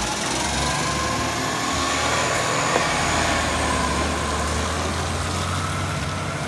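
Side-loader garbage truck's diesel engine pulling away and accelerating, a low engine drone with a faint whine that rises over the first couple of seconds.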